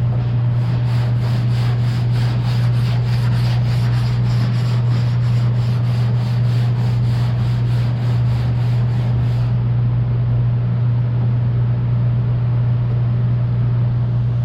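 A steady low machine hum with rhythmic rubbing or scraping strokes over it, about three a second; the strokes stop about two-thirds of the way through while the hum runs on.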